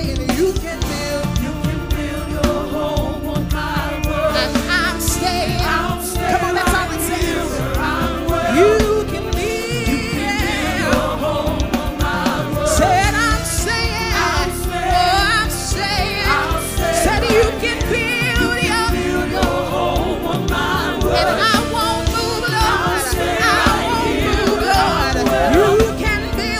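Live gospel praise and worship music: a woman leading on vocals with a group of backing singers over a band accompaniment with a steady beat.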